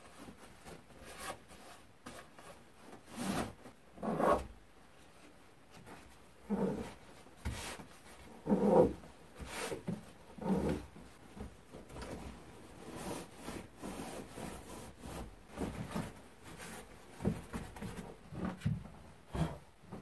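Sleeping bag being stuffed into a stuff sack: irregular rustling and rubbing of synthetic fabric, with several louder swishes in the first half.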